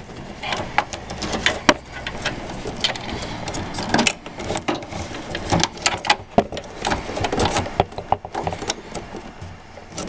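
Computer cables and plastic connectors being handled inside a PC case: irregular rustling, scraping and sharp clicks as SATA data leads are pulled off and a SATA power plug is worked onto a hard drive.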